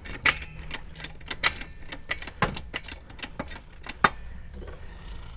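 Irregular light clicks and metallic taps, a few a second, with two louder knocks about two and a half and four seconds in: small metal parts being handled at a floor jack under a car.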